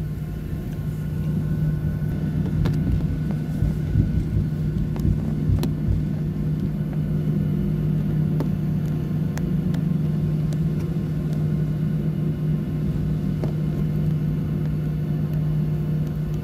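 Cabin noise of a Boeing 737-800 taxiing, heard from inside the cabin. Its CFM56 engines give a steady, unchanging hum over a low rumble, with a few light knocks scattered through it.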